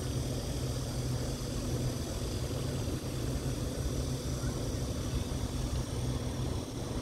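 Motorboat engines droning steadily across the water, from a wakeboard tow boat pulling a rider with a police patrol boat following.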